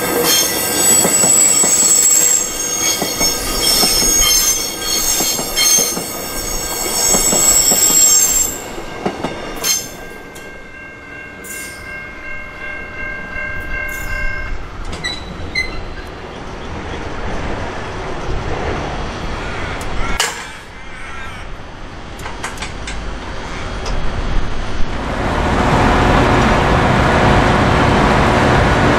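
Electric suburban train running past a level crossing, its wheels squealing in several high, steady tones for the first eight seconds or so. It fades, and a level-crossing warning bell rings steadily until it stops about halfway through. Near the end, a steady rush of road traffic.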